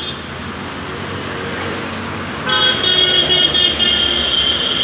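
Street traffic noise, then about halfway through a vehicle horn honks, held for about two seconds with a couple of short breaks. The horn is the loudest sound.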